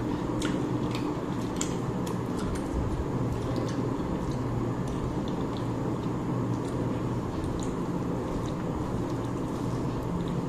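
Eating sounds from a rice meal: soft wet squishes and chewing with scattered small clicks, more of them in the first few seconds, over a steady low hum.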